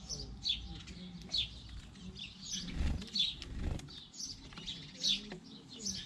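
Sparrows chirping, short high chirps repeating about every half second, with a brief low rushing sound about three seconds in.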